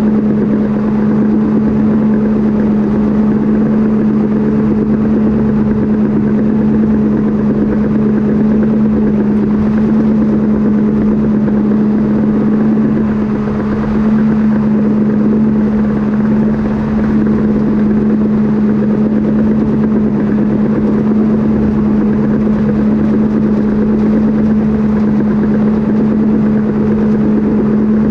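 Cat D5K crawler dozer's diesel engine running steadily while the machine pushes dirt, a constant drone that holds one pitch throughout, heard close to the exhaust stack.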